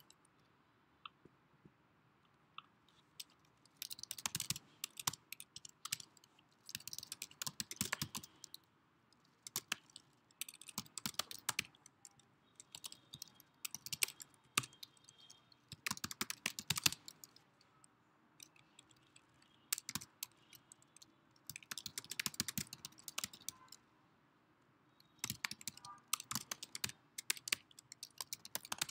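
Typing on a computer keyboard: runs of rapid keystrokes lasting a second or three, separated by short pauses, with only a few isolated key clicks at first.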